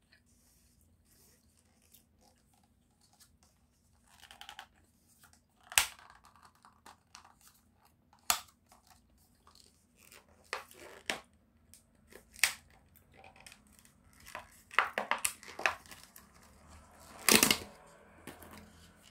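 Close-miked crinkling and tearing of plastic packaging, heard as scattered sharp crackles and clicks. They bunch together in the last third, and the loudest tear comes near the end.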